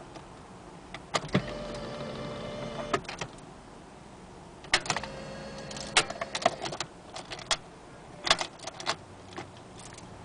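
A small electric adjustment motor inside a 1998 BMW 740i runs twice, about two seconds each time, with sharp clicks before and after each run and a cluster of clicks near the end. It works once the key has been jiggled in the car's faulty ignition switch.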